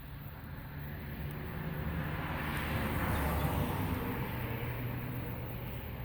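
A vehicle passing by: a low engine noise that swells to a peak about three seconds in and then fades away.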